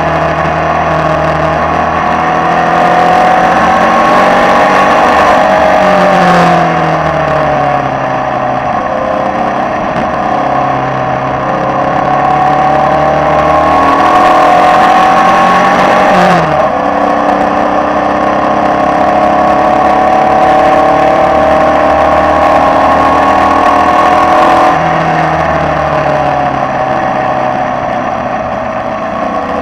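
Formula Vee racing car's air-cooled Volkswagen flat-four engine at full throttle, heard from the cockpit, its pitch climbing steadily and then falling away sharply three times as the driver lifts off for the corners, before pulling up again, over a constant rush of wind.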